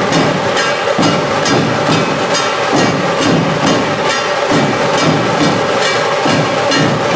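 Dhol tasha drum ensemble playing: many large two-headed dhol barrel drums beaten together with the sharp, rattling strokes of tasha kettle drums, in a loud, steady, repeating beat.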